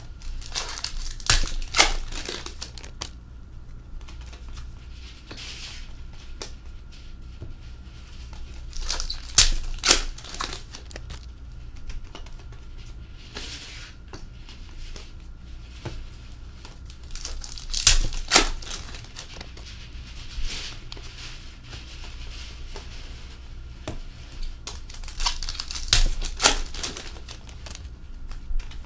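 Hockey card packs being torn open and their wrappers crinkled, in four loud bursts roughly eight seconds apart, with softer rustling and sliding of cards between them.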